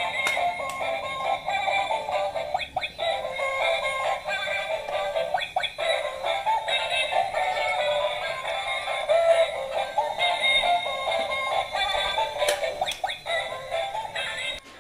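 Battery-operated toy duck playing its tinny electronic song with synthetic singing through a small speaker, thin with no bass, while it moves; a few short clicks come through now and then.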